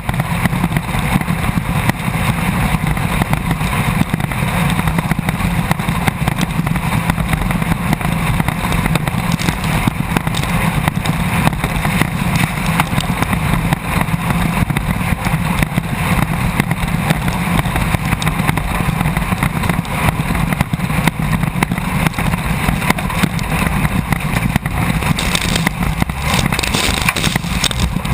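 Class 1600 off-road race buggy's air-cooled VW engine running hard and steady as heard from inside the car, with constant rattling and knocking from the car jolting over rough ground.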